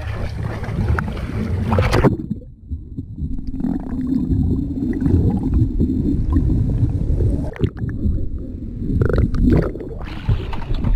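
Sea and wind noise on a small camera at the surface, which goes underwater about two seconds in: a muffled low rumbling and gurgling of sea water for about eight seconds. It comes back up into open-air water and wind noise near the end.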